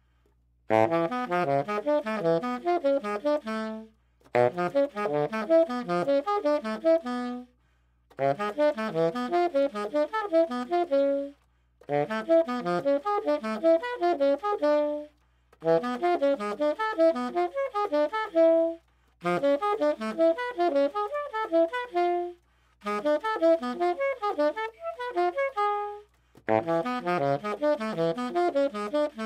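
Tenor saxophone playing a cycle-5 pattern of diatonic fourths and fifths through the modes of B harmonic major. The notes run in fast, even lines. There are eight phrases of about three seconds each, and each ends on a held note before a short breath.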